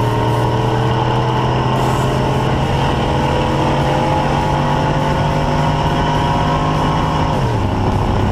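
Pickup truck engine pulling under acceleration, its pitch rising slowly, then dropping sharply about seven and a half seconds in, over steady road and wind rush.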